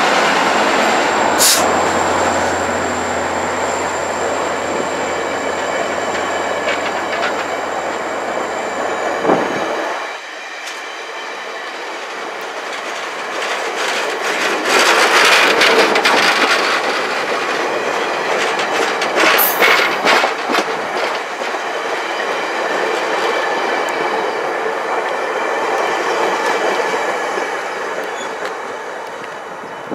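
VIA Rail passenger train's stainless-steel coaches rolling past at close range, with wheels clicking over the rail joints and a thin high squeal in the first several seconds. The sound swells twice in the middle and falls away as the last car passes near the end.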